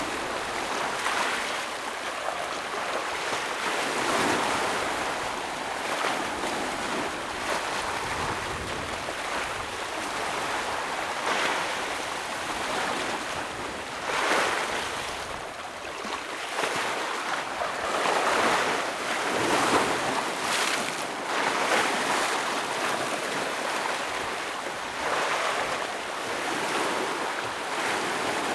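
Ocean waves breaking and washing against rocks, a continuous surf noise that swells every few seconds.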